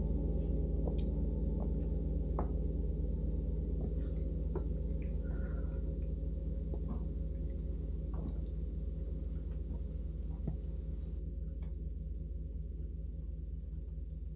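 Large suspended gong ringing on after being struck, a thick cluster of low tones slowly fading. A bird sings a fast, high, descending trill twice, about three seconds in and again near the end.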